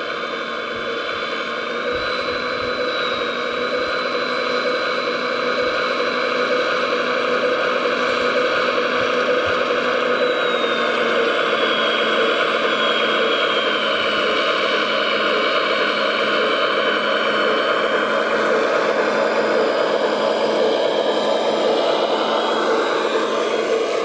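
Radio-controlled scale model of a Volvo A45G articulated dump truck running and driving: a steady engine-like drone with a thin high whine that drops in pitch a little around the middle and comes back up.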